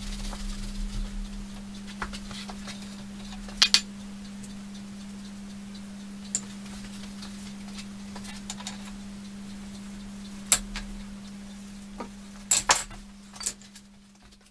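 Scattered sharp clicks and knocks, some in quick pairs, as an aerosol can and a rag are handled against the cast-iron body of a milling machine during cleaning, over a steady low hum.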